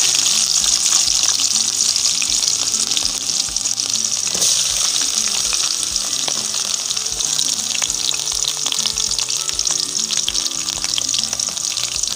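Sliced garlic frying in hot oil with mustard seeds in a steel wok: a steady, loud sizzle with many small crackles as the garlic sautés.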